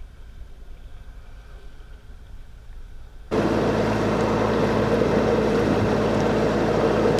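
Boat engine running steadily under way, a constant drone over water and wind noise. It cuts in suddenly about three seconds in, after a quieter stretch of low hum.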